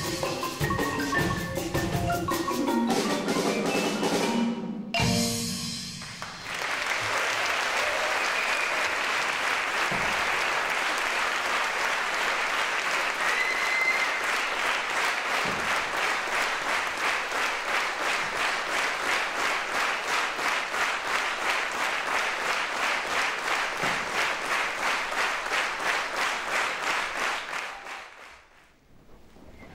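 Music with struck, pitched notes ends about five seconds in. Audience applause then rises and settles into steady rhythmic clapping in unison, about three claps a second, which dies away near the end.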